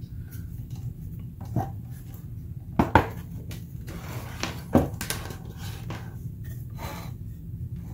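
Handling noise from the metal chassis of a Technics SU-8044 stereo amplifier being turned and shifted on a workbench: a few sharp metallic knocks and clatters, the loudest about three seconds in and near five seconds.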